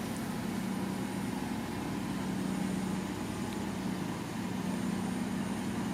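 Bulldozer's diesel engine running steadily, a low drone that eases off about three seconds in and then picks up again.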